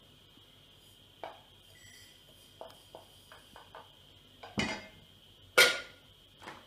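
Wooden spoon knocking and clinking against a stainless steel saucepan and a plate while food is served: a run of light taps in the middle, then louder clanks, the loudest about five and a half seconds in as the lid goes back on the pot.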